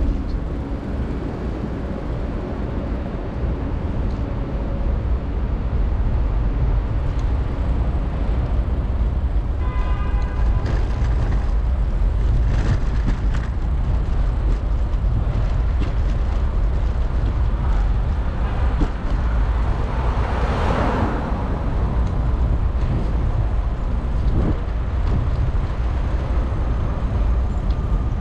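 Wind rushing and buffeting over an action camera's microphone on a moving bicycle, with a steady low rumble of road and traffic noise. A brief pitched tone sounds about ten seconds in, and a louder rushing swell comes about two-thirds of the way through.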